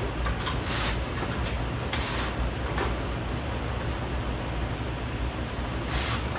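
Steady low hum of a swamp cooler running, with three short scraping rustles from work on the truck door.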